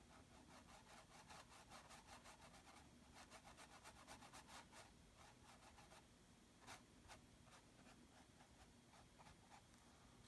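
Faint, quick scratchy strokes of a small paintbrush on textured canvas, about five or six a second for the first five seconds. Then two sharper single strokes and a few sparse light ones.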